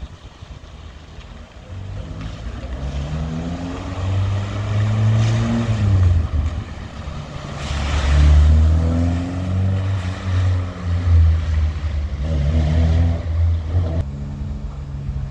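Historic cars' engines revving as they drive off. The engine note rises and falls several times and is loudest about eight seconds in.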